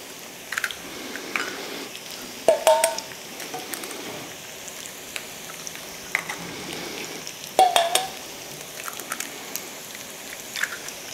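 Eggs knocked on the rim of a stainless steel bowl and cracked open, with sharp taps throughout and two louder knocks, about two and a half seconds in and again after about seven and a half seconds, that set the bowl ringing briefly. Underneath, a steady sizzle of sliced potatoes frying in oil in a pan.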